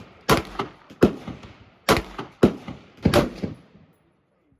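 Gunshots at a shooting range: about five single shots, irregularly spaced, each a sharp crack with a short echoing tail.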